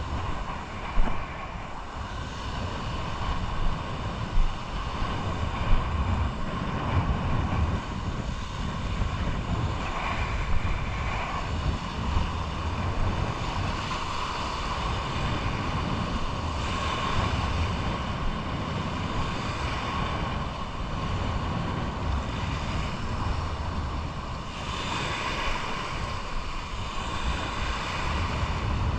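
Wind buffeting the camera microphone over small waves washing and splashing in shallow water, with a few sharp knocks in the first six seconds.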